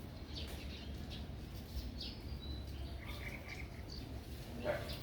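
Scattered short, high chirping calls, one briefly held as a thin whistle about halfway through, over a steady low rumble of background noise.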